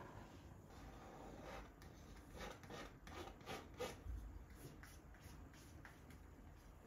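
Faint scrapes of a painting knife dragging paint across stretched canvas, a run of short strokes in the middle.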